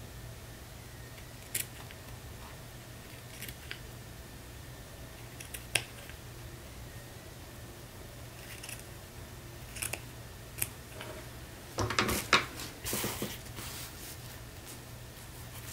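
Scissors snipping through lace trim: single cuts spaced a second or two apart, then a quick, louder run of several cuts about three-quarters of the way through.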